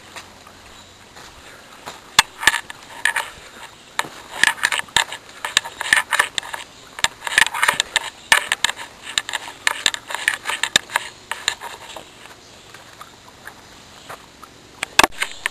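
Footsteps on a dry woodland trail, crackling and scraping in irregular bunches as leaves and twigs are trodden, quieter near the end with one sharp click.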